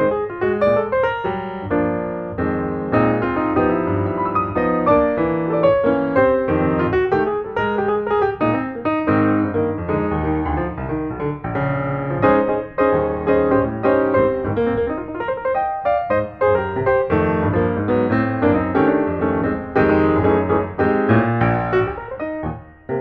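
Background piano music: a continuous stream of piano notes and chords that briefly drops away near the end.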